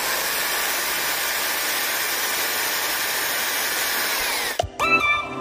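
Electric hand drill running at steady speed as its bit bores into a PVC pipe, then cutting off suddenly a little over four and a half seconds in. Electronic music starts right after.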